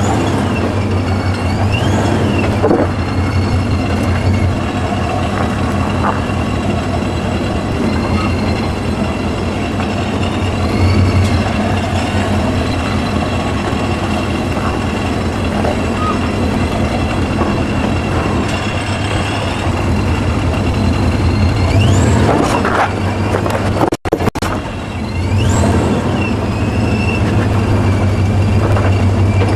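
Off-road 4x4's engine running steadily at crawling speed, with high squeals that rise and fall every few seconds. The sound drops out for an instant about three-quarters of the way through.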